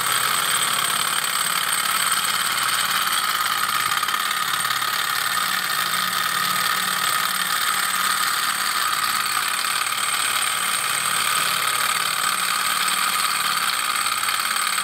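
Sunnytech two-cylinder hot-air Stirling engine running steadily at speed, its pistons, flywheels and rubber-band belt drive turning a small built-in generator with an even mechanical whirring. The engine is hot and run in, working fine.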